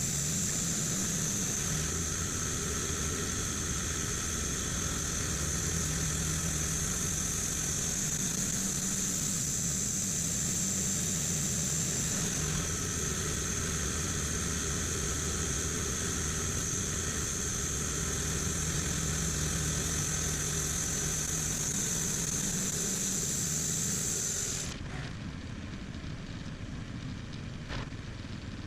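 An engine running steadily at idle, with a high, steady whine over its hum. About 25 seconds in the whine cuts off suddenly and the sound drops a little quieter, while the low engine hum carries on.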